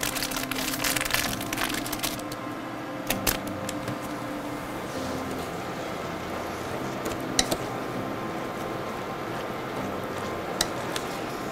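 A plastic seasoning packet crinkling in the hands for the first couple of seconds, then a wooden spatula stirring and scraping sautéed cabbage in a stainless steel pot, with a few sharp knocks of the spatula against the pot.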